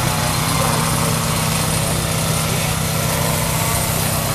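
Two-stroke chainsaw engine running steadily at high speed, a constant engine drone with no change in pitch.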